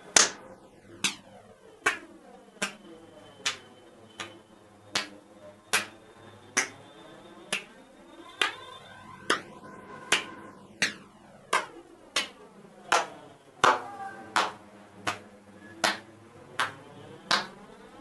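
Single hand claps repeated in a steady series, a little over one clap a second.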